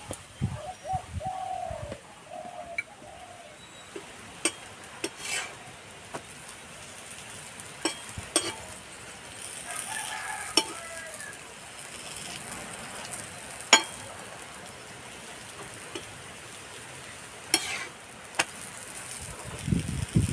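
Paratha frying in oil on an iron tawa, a low steady sizzle, with a metal spatula clicking sharply against the pan several times.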